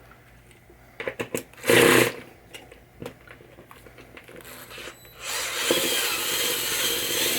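Power screwdriver working at screws in a pinball machine's drop-target assembly: a few small clicks, a short whirr about two seconds in, then a longer steady whirr from about five seconds in.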